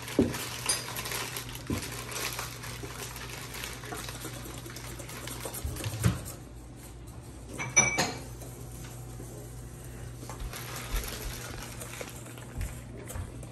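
Wire whisk scraping and clinking against a stainless steel mixing bowl as butter and sugar are mixed by hand, with a few sharper metallic clinks now and then.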